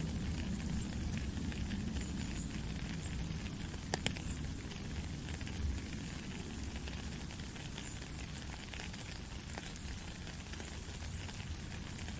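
Steady rain falling in a forest: a dense hiss of drops with a low rumble underneath, and a couple of sharper drip clicks about four seconds in.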